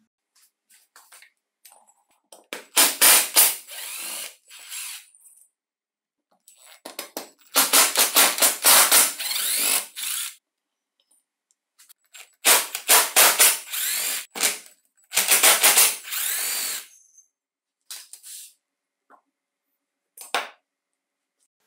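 Cordless power driver spinning out the cylinder bolts of a two-stroke chainsaw engine in four bursts of one to two seconds each, with a fast rattle, then a couple of light knocks near the end.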